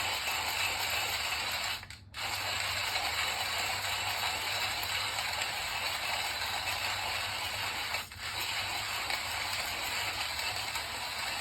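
Hand-cranked coffee grinder grinding coffee beans, a steady gritty crunching with two brief breaks, about two seconds in and about eight seconds in.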